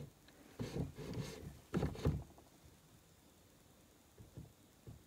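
Knocks and rattles from hand-adjusting a small milling machine as the end mill is brought down toward the workpiece, in two brief spells about a second and two seconds in, then quiet room tone.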